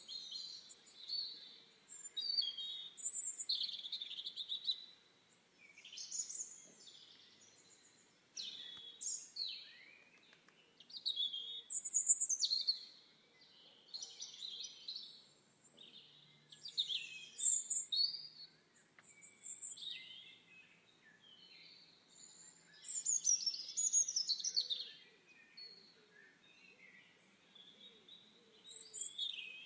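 Wild songbirds singing in a forest: a steady series of short, high, twittering phrases, one after another with brief pauses between, over a faint background hiss.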